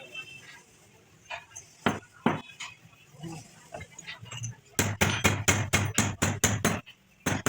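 Hammer striking metal: a few scattered clinks, then a fast run of about ten blows in two seconds, and two more near the end.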